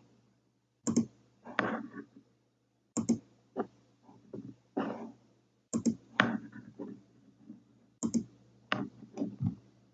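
Clicking at a computer while moving through on-screen menus: short sharp clicks in small clusters every second or so, over a steady low hum.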